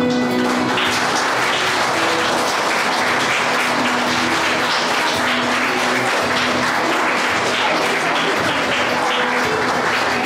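Audience of children applauding steadily, with music playing under the clapping.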